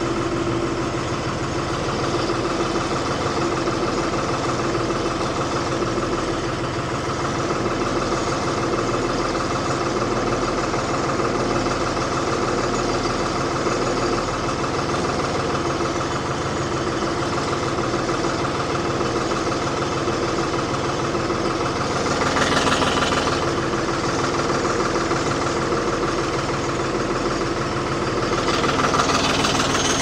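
Diesel engine of a 1975 Ford 550 backhoe running steadily. It grows briefly louder twice, about two-thirds of the way in and again near the end.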